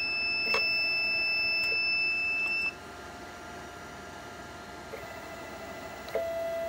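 Early-2000s CNC stepper motor driving a mill's leadscrew at 40 inches per minute, a steady high whine with a couple of clicks, which cuts off suddenly under three seconds in. A short, lower beep-like tone sounds near the end.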